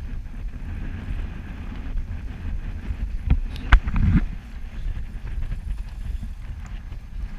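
Wind rumbling on an action camera's microphone aboard an offshore boat. A few sharp knocks come about three to four seconds in, the loudest near the middle.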